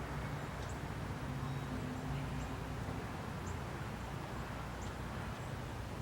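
Outdoor ambience: a steady low rumble and hiss, with a handful of faint, short, high chirps from small birds scattered through it.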